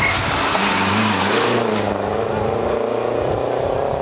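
Rally car passing at speed, its engine note climbing about a second in and then held at high revs as it accelerates away, with tyre and road noise.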